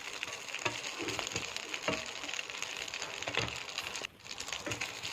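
Marinated chicken pieces frying in oil on a tawa: a steady sizzle with scattered pops and crackles, briefly dropping out about four seconds in.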